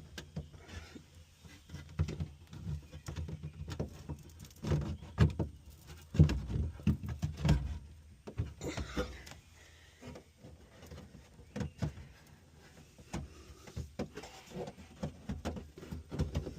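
Irregular knocks, taps and scrapes of hand work prying at sound deadening mat stuck to a car's sheet-metal floor, with a few heavier thuds in the middle.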